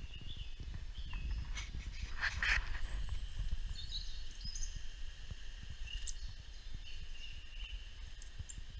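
Small birds chirping and calling from a bird video playing through laptop speakers: scattered short chirps and whistles, with a short harsh burst about two seconds in. Under them runs a low rumble with small knocks.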